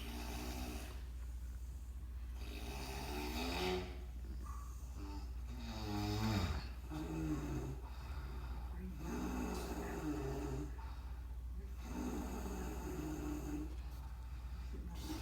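A man snoring in his sleep: a rattling, pitched snore about every two to three seconds, the loudest about six seconds in, over a steady low hum.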